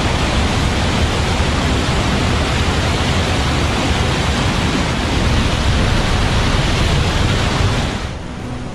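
Whitewater of a fast mountain stream rushing over boulders: a loud, steady rushing noise that drops away suddenly near the end to a quieter hiss.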